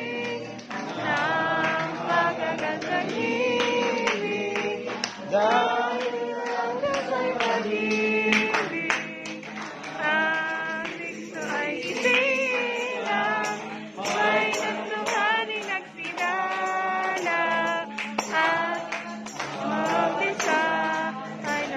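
Group singing of a worship song, accompanied by a strummed acoustic guitar.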